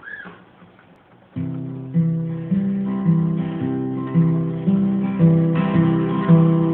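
Steel-string acoustic guitar being strummed: after a quiet first second or so, a chord pattern starts, with a new strum about twice a second, as the introduction to a song.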